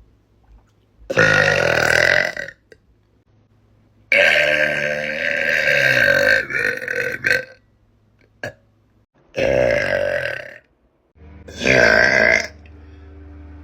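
A woman burping loudly four times, the second burp drawn out for about three seconds.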